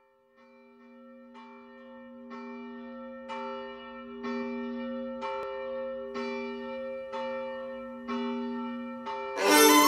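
A bell tolling about once a second, each stroke ringing on, fading in from quiet as the intro of a song. Just before the end the band comes in loudly, led by a violin.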